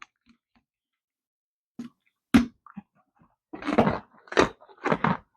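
A horse biting into a hard, crunchy treat: one sharp crack a little over two seconds in, then a quick run of crunches as it chews.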